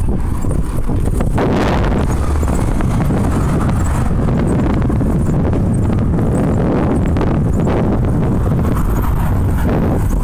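Wind buffeting a handheld phone's microphone while riding a bike, a steady loud rumble with traffic noise under it and a few small knocks from the phone being handled.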